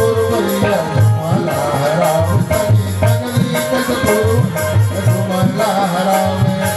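Devotional bhajan music: singing over the held chords of a harmonium, a hand drum keeping a steady rhythm, and the jingle of hand-held clappers.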